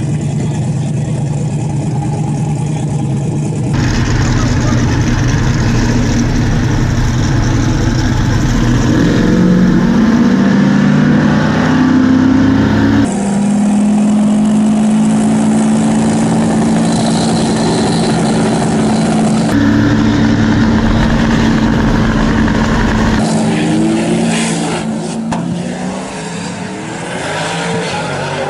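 Drag race car engines running and revving, spliced from several shots with abrupt changes in sound. In one stretch the engine note climbs as it revs; in another it is held at a steady pitch for several seconds.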